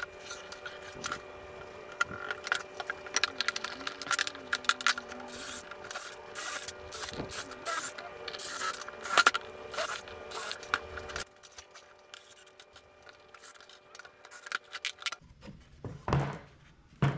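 Soft background music with steady held notes under a busy run of clicks, knocks and scrapes from wood pieces and tools being handled as boards are glued and screwed into a pine planter box. The clicking thins out about eleven seconds in.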